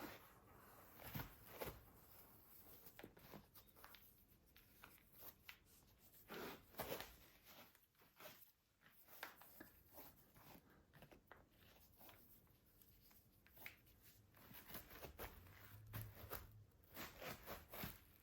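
Near silence: quiet room tone with a few faint scattered clicks and short rustles.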